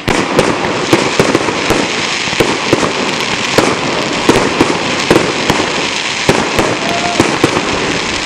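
Fireworks display in a dense barrage: rapid, overlapping bangs, several a second, over continuous crackling.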